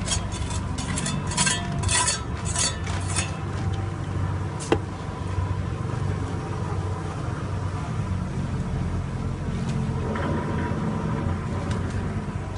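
Steel shovel scraping and clinking on metal and mortar, a quick run of clinks in the first three seconds and one sharp ringing knock near five seconds, over a steady low hum.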